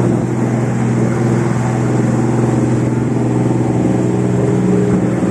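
The engine of a small passenger boat running steadily under way: a constant low drone, with water and wind rushing past the hull.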